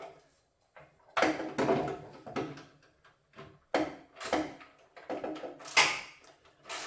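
Irregular clunks and scrapes of an 8 mm socket wrench and the fog lamp's mounting as the bolts are tightened by hand, several sharp knocks a second or so apart.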